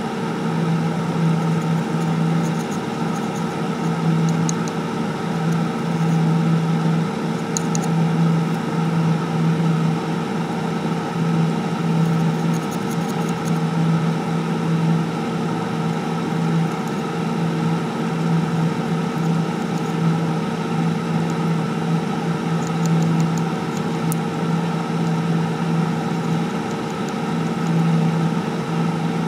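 Steady electrical hum and whir, with a deeper hum that cuts in and out every second or two.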